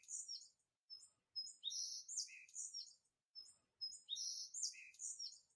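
Faint songbirds chirping, a background ambience: a short whistled note followed by a cluster of quick high chirps, the same phrase repeating about every two and a half seconds like a loop.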